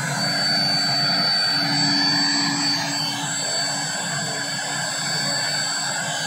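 A military light helicopter's turbine engine running on the ground: a steady high whine over a constant rushing drone.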